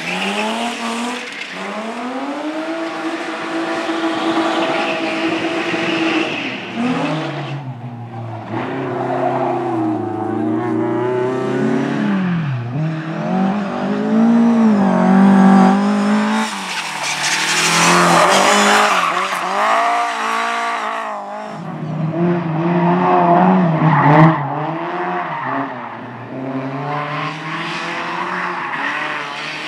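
Race car engine revving hard, its pitch climbing and dropping again and again as it accelerates and lifts off, with tyre squeal.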